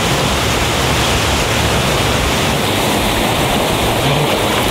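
Steady rush of water pouring over a small rock cascade close by.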